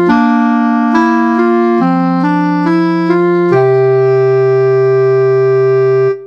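Background keyboard music: a melody of short notes over chords, then one long held chord that fades out near the end.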